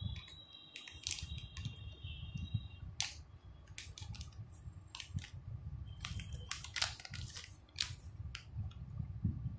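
Clear plastic bag crinkling in irregular sharp crackles as the bagged RO membrane is turned over in the hands, over low handling bumps.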